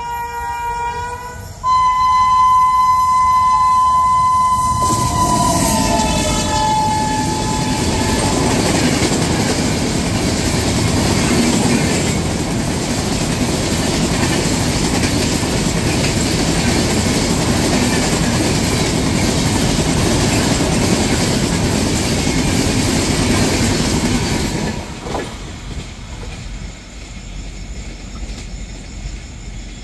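Locomotive horn of the 13425 Malda Town–Surat Express blowing as it approaches, a multi-tone chord that gets louder about two seconds in and drops in pitch as the engine passes. It is followed by the steady rumble and wheel clatter of LHB coaches passing at speed for about twenty seconds, which fades suddenly near the end.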